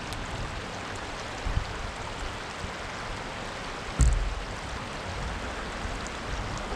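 Creek water running steadily, with a single sudden thump about four seconds in.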